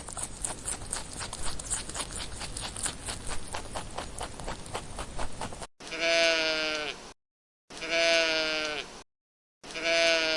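Irregular rapid clicking and rustling, then a sheep bleating three times, about two seconds apart. Each bleat lasts about a second and falls slightly in pitch.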